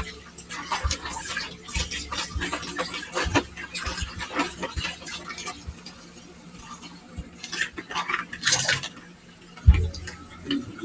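Kitchen clatter: a pan and utensils clinking and knocking in scattered, irregular clicks, with a heavier thump near the end.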